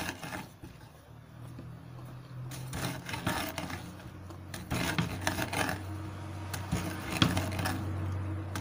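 Stuffed paratha beaten lightly with a wooden rolling pin and pressed by hand on a wooden board. The fried moong dal filling inside crunches: irregular knocks, rubbing and crunching, described as a good crunchy sound.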